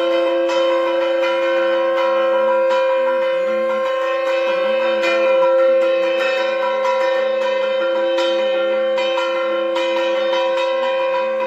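Instrumental music: a steady two-note drone under a slow, low melody, with repeated bell-like strikes.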